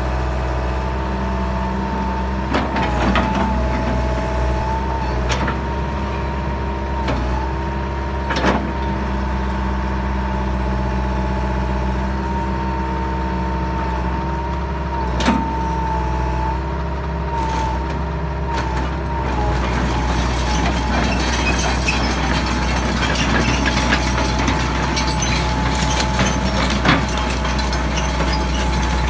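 Hitachi EX160LC hydraulic excavator running as its boom, arm and bucket are worked: a steady engine hum under a high whine that dips briefly several times, with occasional sharp clunks. From about two-thirds of the way through the sound grows rougher and noisier.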